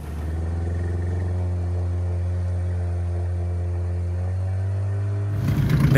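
Two-stroke outboard motor running at a steady idle, an even low drone.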